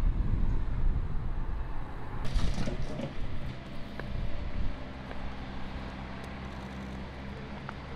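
Low rumble of road traffic, with a car engine's steady drone coming through in the second half.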